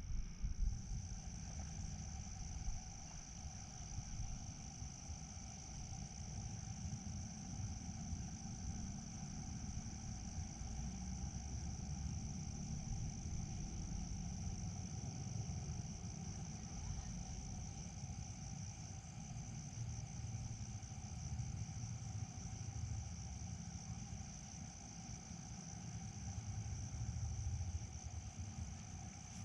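Crickets chirping in a continuous high-pitched drone, with a second, lower steady insect tone under it, over a low rumble.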